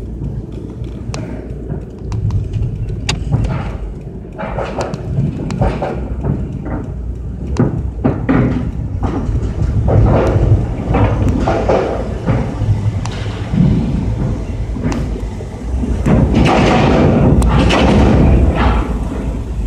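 Low rumble of a car driving up a ferry loading ramp and onto the car deck, heard from inside the cabin, with many irregular thumps and knocks. The noise grows louder and fuller a few seconds before the end.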